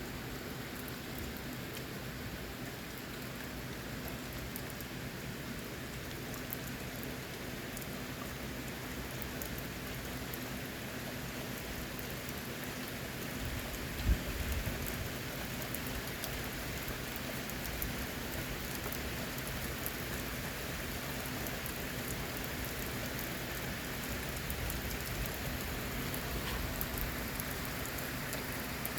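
Steady rain falling on surfaces from a passing storm cell. About halfway through there is a single sharp low thump with a short rumble after it.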